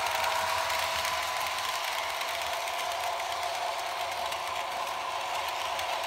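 Märklin HO-scale model freight train running on Märklin M-track: a steady mechanical rattle of metal wheels rolling over the pressed-steel track.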